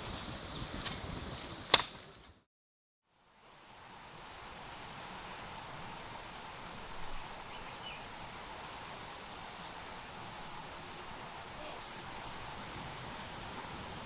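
Outdoor ambience with insects chirring steadily at a high pitch. There is one sharp click just under two seconds in, and the sound drops out completely for under a second at a cut shortly after.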